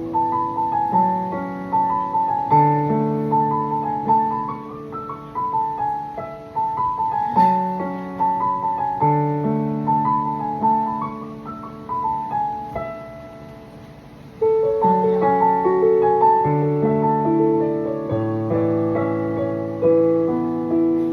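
Yamaha P45 digital piano playing a gentle melody over flowing left-hand broken chords. About twelve seconds in the playing fades softly, then comes back louder near the middle.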